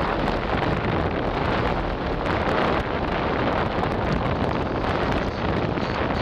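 Steady wind buffeting the camera microphone during paramotor flight, an even rushing noise with no clear engine tone.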